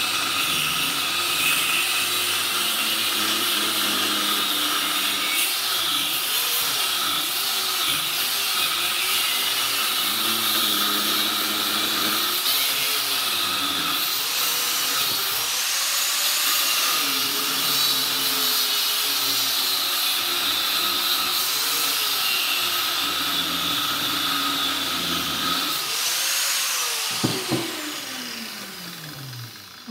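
Corded rotary tool with a cutoff wheel grinding through a transformer's steel core, a steady high whine that dips and recovers in pitch as the wheel bites into the metal. Near the end it is switched off and winds down, falling in pitch, with a couple of clacks.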